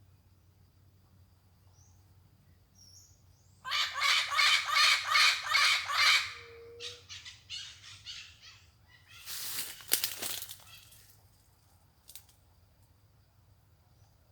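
Parrot calling in a rapid run of harsh, raspy squawks, about three a second, starting a few seconds in, then a few softer calls. About ten seconds in comes a short rustling burst.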